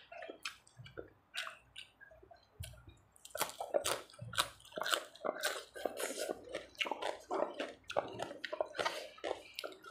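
Close-miked wet chewing and lip-smacking of a mouthful of tam sua, a spicy salad with soft rice noodles and fresh greens. Only a few faint mouth clicks at first, then, about three seconds in, a fresh mouthful brings dense, irregular squishy chewing and smacks.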